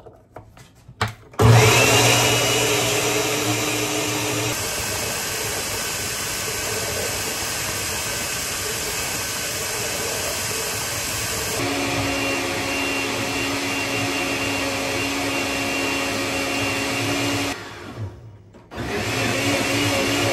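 Small electric appliance motor running at high speed. It spins up with a rising whine about a second and a half in, then runs steadily, its tone changing abruptly twice. It stops briefly near the end and starts again.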